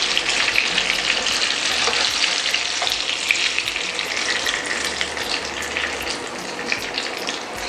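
Pomfret shallow-frying in hot refined oil in a pan, a steady sizzling hiss. The sizzle eases a little near the end as the fish is lifted out with a spatula and spoon.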